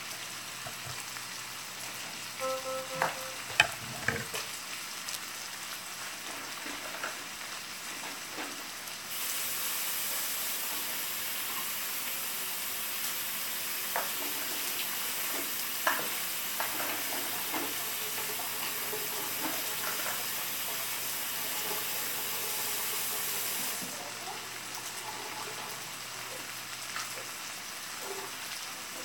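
Potato and sausage breakfast hash sizzling steadily in a frying pan, with a few sharp knocks in the first few seconds. A louder, brighter hiss starts about nine seconds in and stops abruptly some fifteen seconds later.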